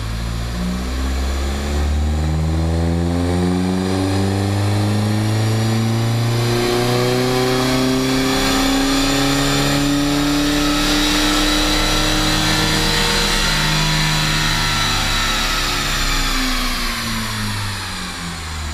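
A 2.0-litre four-cylinder turbodiesel VW Jetta TDI, on a Stage 2 tune with the DPF deleted, is run up under full load through an aftermarket cat-back exhaust. The exhaust note climbs steadily in pitch for about twelve seconds, then winds down near the end as the throttle closes.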